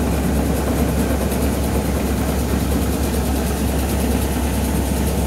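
Seed cleaning and treating machinery running steadily, a constant low hum with a faint fast pulsing high above it.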